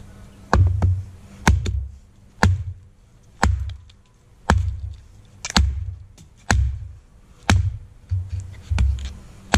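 Wenger Blades Beohawk hatchet chopping down into a small stick of wood on a stump to split it, about one sharp blow a second, around ten blows in all.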